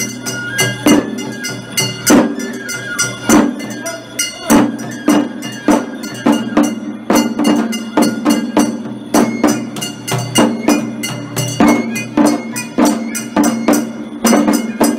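Japanese festival ohayashi drumming: shime-daiko snare-like drums struck with sticks, with a large taiko drum, in a steady driving beat of about two sharp strokes a second.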